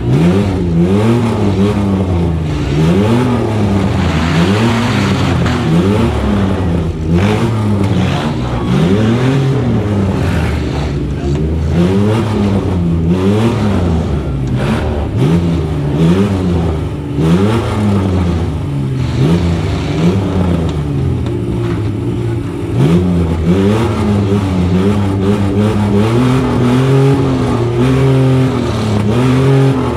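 Several demolition derby cars' engines revving up and down over and over, overlapping one another, with a few sharp knocks among them.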